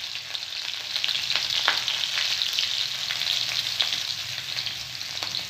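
Chopped green chillies and garlic cloves sizzling in hot oil in a kadhai, a steady hiss with scattered sharp pops and crackles.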